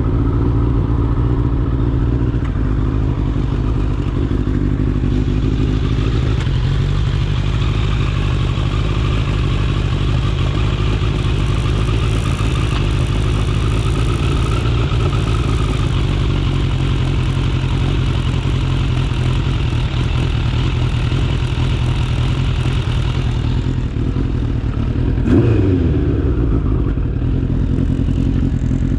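1985 Suzuki GSX-R slabside streetfighter's four-cylinder engine running steadily under way on its first test ride after a carburettor rebuild. About 25 seconds in there is a brief louder moment that drops in pitch.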